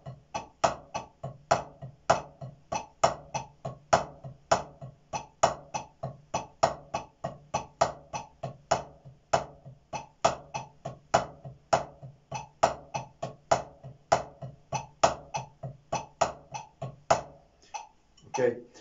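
Drumsticks playing alternating single strokes on a practice pad in a steady rhythm, with loud accented strokes standing out among soft taps: a stick-control accent exercise. The playing stops shortly before the end.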